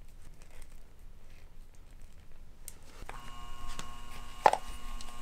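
A 115-volt capacitor-run furnace blower motor, wired to its high-speed lead and spinning with no blower wheel, switches on about three seconds in with a click and then runs with a steady hum. A sharp click follows about a second and a half later.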